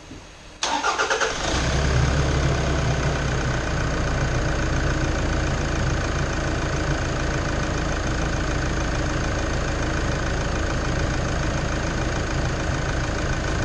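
Toyota Land Cruiser Prado's 3.0 turbo diesel engine started after its fuel filter has been replaced: a brief crank about half a second in, catching within a second, then idling steadily.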